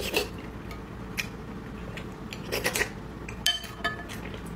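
Spoon clinking and scraping against a bowl of boiled eggs in broth: a handful of short, separate clinks, one about three and a half seconds in with a brief ring.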